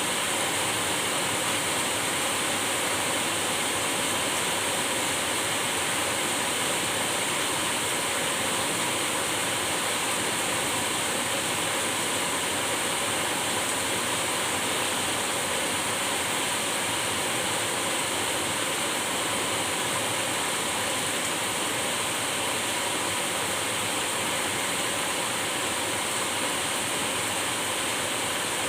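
Steady rainfall, an even hiss that holds unchanged throughout.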